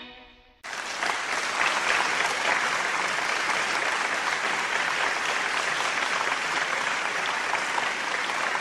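The end of a song fades away, then applause starts suddenly just under a second in and carries on at an even level.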